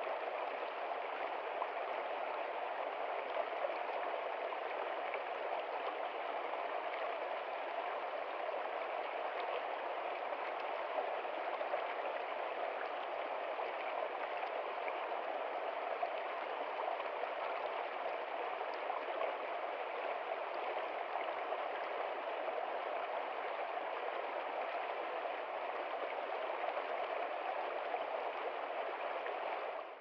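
Shallow stream running over rocks, a steady babble and rush of water.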